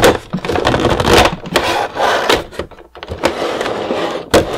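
Clear plastic blister packaging crinkling and crackling as it is handled and pulled out of a cardboard box, in irregular bursts with sharp clicks and a short lull about three seconds in.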